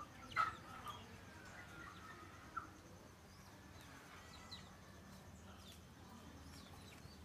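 Vietnamese native chickens (gà ta) calling faintly: a short sharp call about half a second in, then a drawn-out, slightly falling call ending around two and a half seconds in, with a few faint chirps later.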